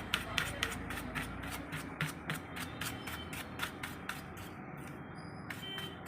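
A run of small, irregular clicks and scraping handling noises over a low background hum.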